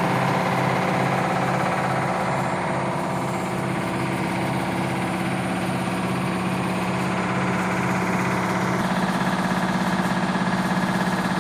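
Yanmar TF 300 single-cylinder diesel engine running steadily, driving a YMM 20 rice mill that is milling and blowing husks out of its discharge pipe.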